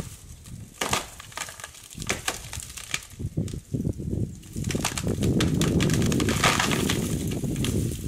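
African elephant tearing branches from a tree: repeated sharp cracks and snaps of breaking wood, then from about five seconds in a long, loud crunching rustle of leafy branches being pulled down.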